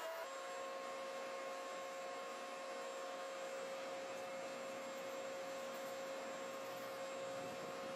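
A small motor running steadily, giving a constant hum of several fixed tones over a light hiss.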